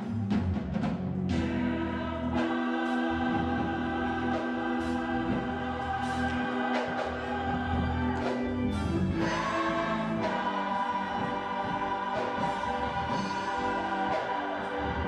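Gospel choir singing in a church, holding long sustained notes in several voice parts, steady in loudness throughout.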